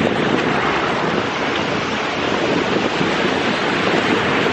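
Ocean surf washing and breaking steadily all around, a continuous rushing noise.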